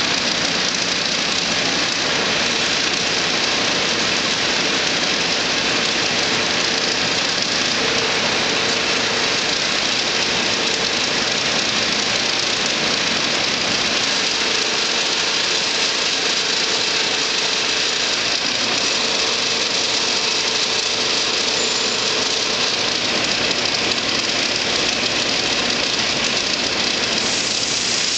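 Bullard vertical turret lathe running under power, a steady, even machine noise with a faint tone that comes and goes.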